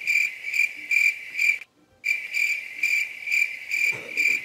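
Cricket chirping, a high chirp repeating evenly about twice a second, the stock 'crickets' sound for an awkward silence. It drops out for a moment about halfway through, then carries on as before.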